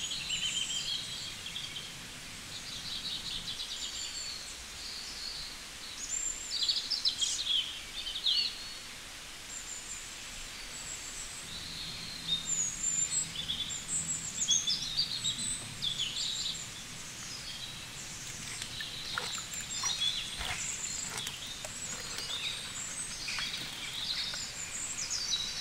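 Birds chirping: many short, high calls one after another over a soft background hiss, with a few light clicks about three-quarters of the way through.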